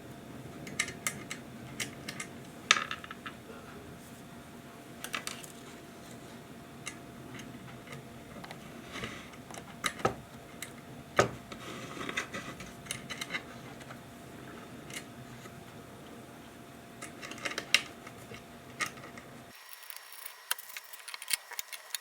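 Small metal parts, wire and tools being handled on a workbench while a homemade doorbell is put together: scattered light clicks, taps and knocks, a few of them sharper.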